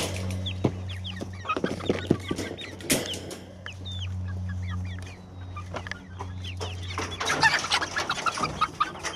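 Young chickens clucking and peeping in short rising and falling chirps, with a few sharp clicks from the wire dog cage. A steady low hum runs underneath.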